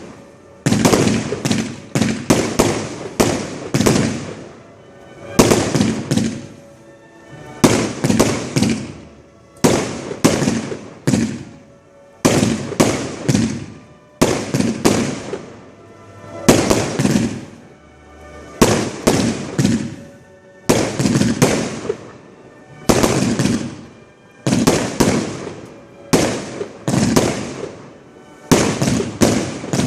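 Fireworks display heard close to the firing site: rapid salvos of shell launches and bursts come in clusters about every two seconds, each cluster ending in a fading rumble.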